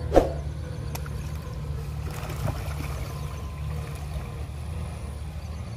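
Magur catfish splashing at the surface of a pond as they feed, with one sharp, loud splash just after the start and a few smaller ones later, over a steady low rumble.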